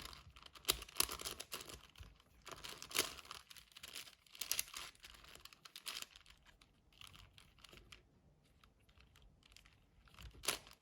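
A 6x6 Rubik's cube's plastic layers being turned by hand: quick, irregular clicks and clacks. They thin to a few soft ticks for a few seconds after the middle and pick up again near the end.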